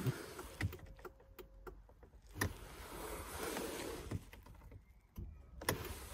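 A few separate knocks and clicks over a low background hiss.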